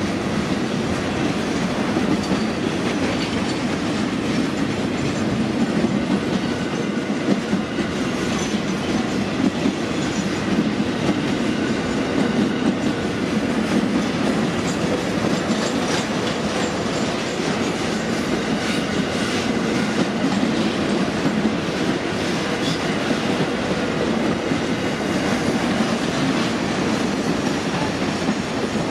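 Container freight wagons rolling past at steady speed: a continuous heavy rumble from the wheels on the rails, with the clickety-clack of the wheels over the rail joints.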